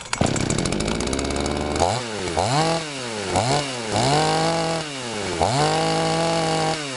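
A new 52 cc two-stroke chainsaw with a 20-inch bar and chain, just started, runs evenly for about two seconds. It is then revved up and back down about five times, the last revs held for a second or more each.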